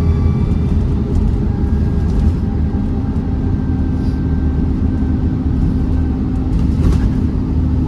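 Dennis Trident double-decker bus engine running under way, heard from inside the bus as a loud, steady low drone that holds one pitch, with a faint high whistle from about halfway. There is a brief knock about seven seconds in.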